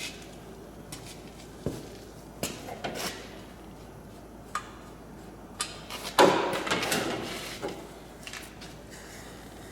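Tools and equipment being handled while AC gauges and a vacuum pump are hooked up: scattered clicks and knocks, with a louder clatter about six seconds in.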